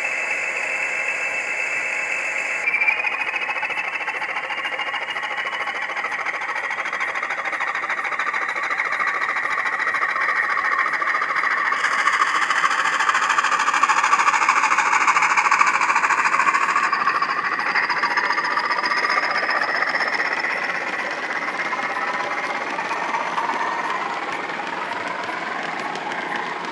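DCC sound-decoder recording of a Class 20 diesel's English Electric engine, played through the model locomotive's own small speaker, running under power as it hauls a train. A thin whistle rises over the engine in the first few seconds; the sound swells to its loudest midway, then eases off as the loco passes.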